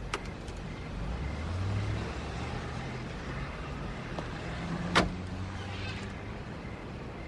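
A car's engine running low and steady, with a single sharp car-door slam about five seconds in.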